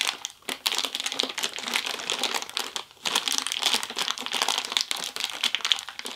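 Plastic packaging crinkling and crackling as hands struggle to get it open, with a brief lull about halfway through.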